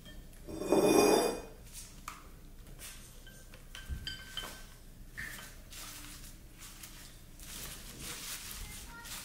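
Cut flowers being moved from a glass vase into a ceramic vase on a countertop: a brief louder rustle of the stems about a second in, then light knocks and clinks of glass and ceramic, with a soft thump near four seconds.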